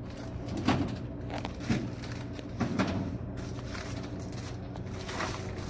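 Plastic snack packets crinkling and rustling as they are handled, with a few soft knocks, over a steady low hum.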